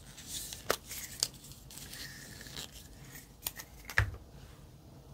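Plastic lipstick tube handled and opened, its cap pulled off and the stick twisted up: light rustling and four sharp plastic clicks, the loudest about four seconds in.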